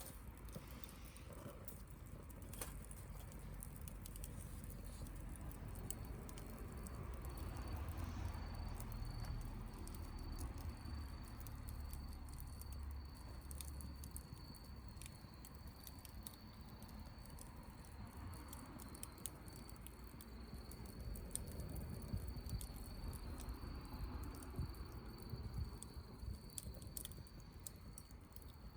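Wood bonfire crackling, with scattered sharp pops and ticks over a low rumble. A thin steady high tone comes in about six seconds in and carries on.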